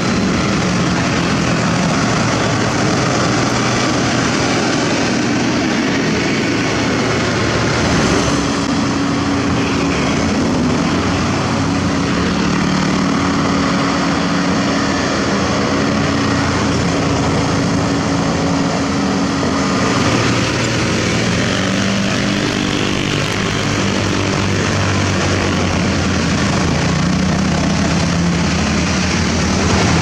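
Road traffic on a busy hill road: diesel trucks and motorcycles running and passing, a dense steady engine drone with a held engine note from about 8 to 20 seconds in.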